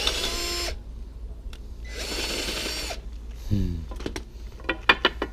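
Compact cordless drill boring holes through a thin wooden strip: two runs of about a second each, one at the start and one about two seconds in, with the motor whining steadily under load. A few sharp knocks follow near the end.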